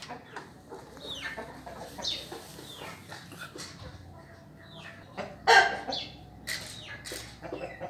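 Australorp chickens clucking and calling again and again in short, falling calls, with one loud call about five and a half seconds in.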